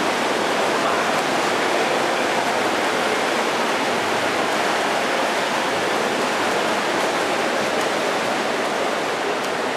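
Steady, even wash of noise in an indoor swimming pool hall during a race: swimmers' splashing blended with the hall's reverberant background din.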